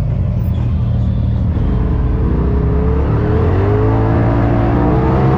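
Polaris RZR Turbo S side-by-side's turbocharged engine running under load, its pitch climbing steadily from about two seconds in as it accelerates, over a continuous rush of driving noise.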